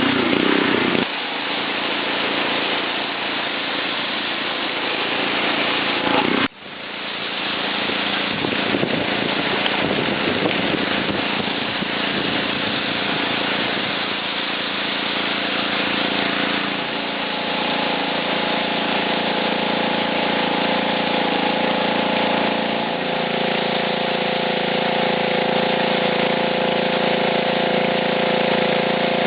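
Gas pressure washer with a 5 hp Honda engine running steadily while its spray hisses against concrete. The sound cuts out briefly about six seconds in. The engine note shifts a couple of times in the second half.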